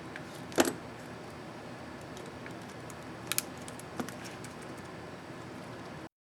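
Sharp plastic clicks from an ASUS X551C laptop keyboard key and its keycap: one loud click about half a second in, a quick double click a little past three seconds, and another just after four, with a few faint ticks over a steady hiss.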